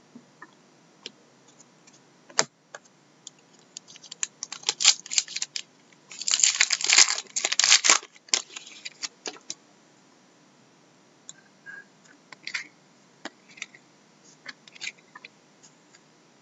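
Trading cards being handled and shuffled by hand: scattered flicks and clicks of card stock, with a denser stretch of rustling about six to eight seconds in.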